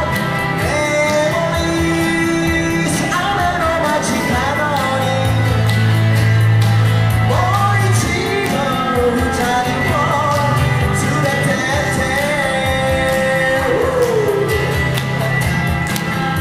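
Live amplified pop-rock song: a singer's voice over a hollow-body electric guitar, played through PA speakers, with long sustained bass notes under the melody.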